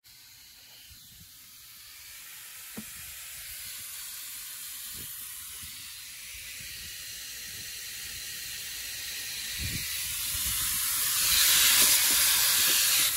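Pressurised gas hissing steadily from an air-conditioner gauge hose or service fitting, most likely the nitrogen used to pressure-test the system, growing louder toward the end.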